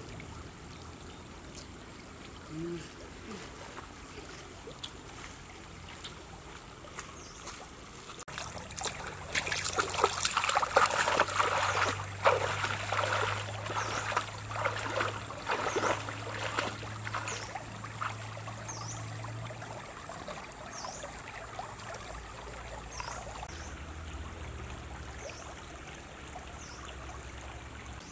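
Feet wading and splashing through a shallow flowing stream, irregular splashes for about ten seconds in the middle, over the steady sound of running water.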